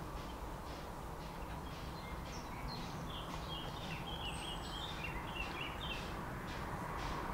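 Steam locomotive working slowly, its soft exhaust beats coming at an even pace over a low rumble and growing louder near the end. Birds chirp briefly in the middle.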